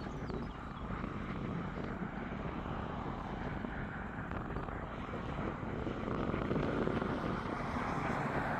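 Steady wind rush on an outdoor microphone, growing a little stronger in the second half.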